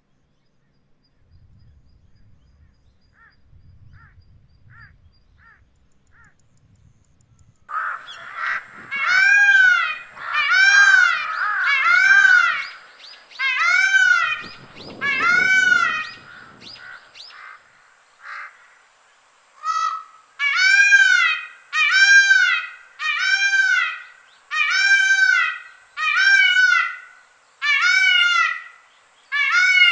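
Male Indian peafowl (peacock) giving its loud, repeated calls, each about a second long and rising then falling in pitch. They start about eight seconds in: a run of about six, a short pause, then about ten more in quick succession.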